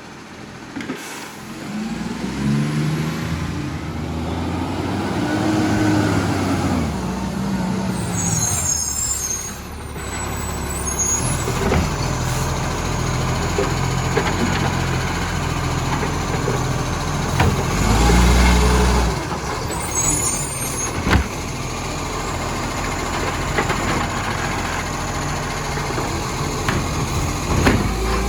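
Diesel rubbish truck with a leaking exhaust running and revving up and down, with two short hisses of air from its air system.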